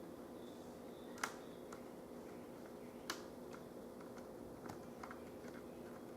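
Light clicks and taps from handling laptop parts and tools during reassembly, with two sharper clicks, one about a second in and one about three seconds in, over a steady low hum.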